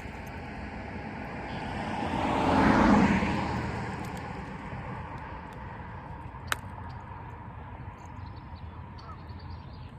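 A car passing by, its noise swelling to a peak about three seconds in and fading away over the next couple of seconds. A single sharp click comes a few seconds later.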